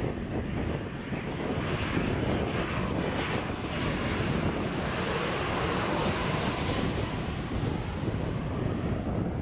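United Boeing 737-800's CFM56-7B turbofan engines passing low overhead on landing approach. The jet noise swells, with a high fan whine that peaks about five to six seconds in as the aircraft goes over, then fades.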